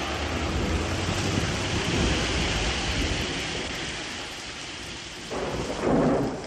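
Heavy rain pouring onto the street and pavement, a steady dense hiss with a low rumble underneath. A louder swell rises and falls near the end.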